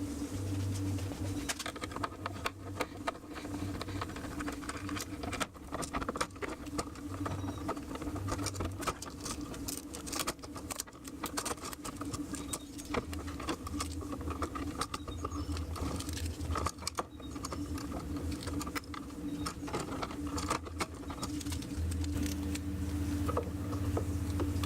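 Irregular small clicks, taps and scrapes of hands and tools at work, over a steady low hum.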